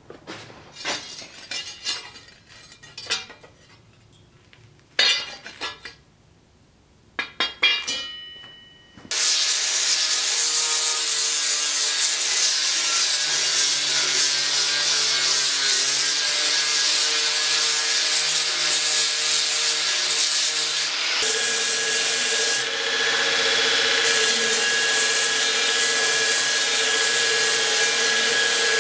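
A few faint taps and clinks, then, about nine seconds in, an angle grinder starts grinding the steel sword blade with a loud, steady rasp. About twenty seconds in, a belt grinder grinding the blade with a steady hum takes over.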